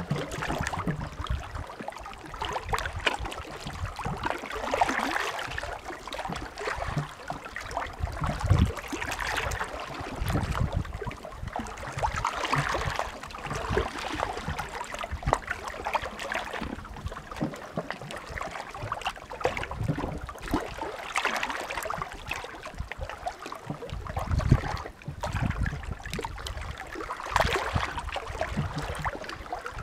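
Small sea waves washing onto the shore, a surge of fizzing, crackling water every few seconds.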